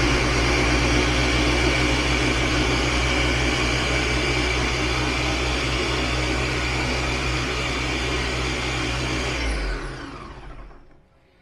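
Ninja BN801 blender running steadily, its blades pureeing tomatoes, then switching off about nine and a half seconds in and winding down.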